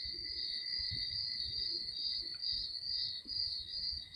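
Crickets chirping in a steady, high, slightly pulsing trill, with faint low handling noise beneath.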